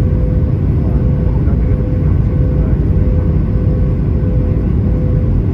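Airbus A320 cabin noise in flight: a steady low rumble of airflow and jet engines with a constant hum running through it.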